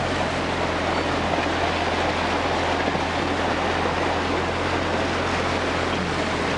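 Vehicle driving along, heard from inside the cabin: steady engine and road noise with a constant low hum.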